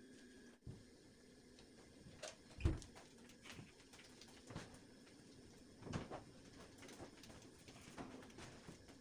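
Quiet cleaning sounds on a tiled floor: scattered soft knocks and thuds from footsteps in sandals and from a floor mop and a rug being handled. The loudest is a single low thump about a third of the way in.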